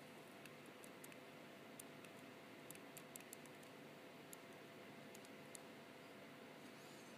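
Faint, irregular taps and clicks of an S Pen stylus tip on a Galaxy Note 3 touchscreen as characters are handwritten, over low room hiss.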